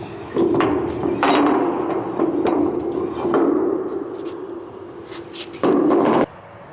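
Metal clanking and knocks over a steady rasping noise, cutting off suddenly about six seconds in.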